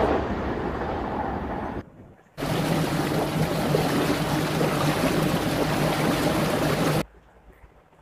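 Motor yacht running at speed: a steady low engine hum under rushing water and wind, starting after a brief gap about two seconds in and cutting off suddenly near the end. Before the gap, the fading running sound of a train.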